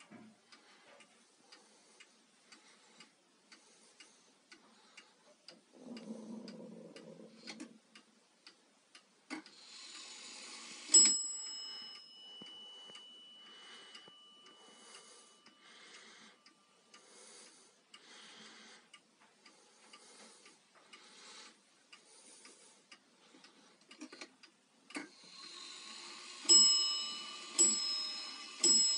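Weight-driven Dutch-style wall clock ticking steadily, with one bell strike ringing on for several seconds about a third of the way in. Near the end it starts striking the hour, the bell struck several times at a steady pace of a little more than one stroke a second, each strike run preceded by a brief whirr of the striking mechanism.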